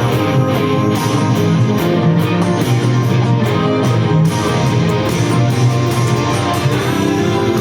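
Music led by guitar, with strummed chords over a steady bass line.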